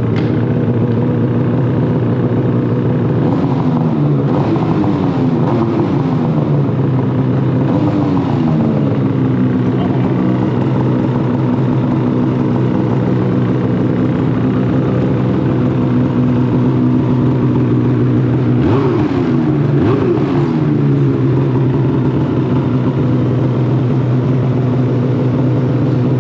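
A vehicle engine, started just before, idling steadily and revved briefly several times: about three, five and eight seconds in, and twice more around nineteen to twenty seconds in.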